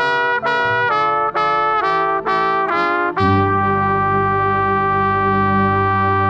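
Marching band brass playing, with a trumpet loud and close: a run of about six short, separated notes, then a long held chord with low brass underneath from about three seconds in.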